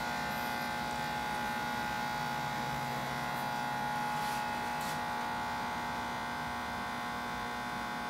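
Ascaso Dream Up V2 espresso machine's vibratory pump running steadily under pressure while pulling a shot through an ESE pod: a steady, fairly quiet buzz.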